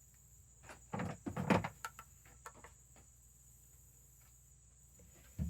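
A short cluster of knocks and bumps about a second in, followed by a few faint clicks, over a steady high insect-like chirring.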